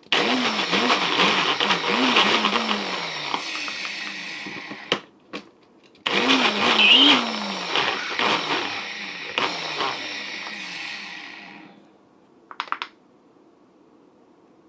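Countertop blender running in two bursts on a thick frozen blueberry smoothie, its motor pitch dipping and recovering as it churns the heavy mix, then winding down. Short knocks between the bursts and a brief rattle after.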